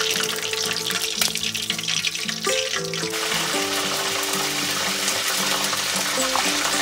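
Background music with a steady melody, over hot oil crackling as tempura fries for about the first three seconds. After that the crackle gives way to an even rush of water.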